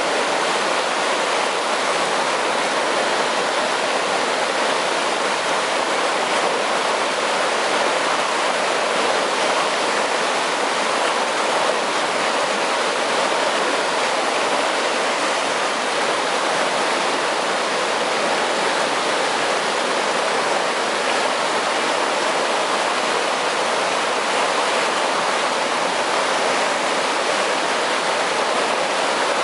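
Water rushing steadily through an irrigation canal at the entrance to an aqueduct, a constant, even rush with no breaks.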